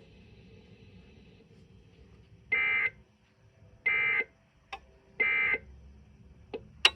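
Emergency Alert System end-of-message (EOM) data burst: three identical short bursts of buzzy digital tones, each about half a second long and spaced about a second and a half apart, signalling that the relayed test tornado warning has ended.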